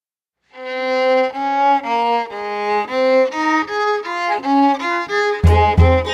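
Background music: a violin melody in short, stepping notes starts about half a second in, and a heavy low beat joins near the end.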